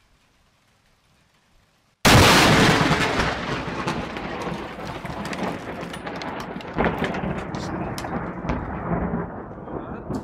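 A very close lightning strike: a sudden, very loud thunderclap about two seconds in, then thunder rumbling and crackling as it slowly fades, with a few sharp clicks along the way.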